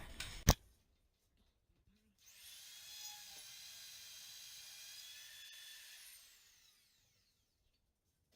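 A sharp knock, then a high-speed power tool spinning up, running with a steady high-pitched whine for about four seconds, and winding down.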